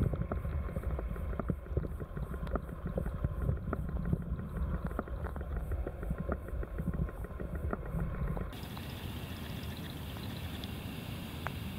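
Muffled sound picked up by a camera held under shallow lake water: a dense low rumble with many small scattered clicks and ticks. About eight and a half seconds in it cuts off suddenly, leaving a faint steady hiss above water.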